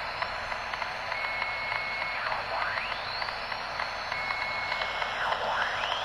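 Unidentified signal received by a Uniden Bearcat 3500XLT handheld scanner around 65.57 MHz, heard through its speaker over steady static hiss. The pattern repeats about every three seconds: a steady high beep about a second long, then a tone sweeping upward in pitch.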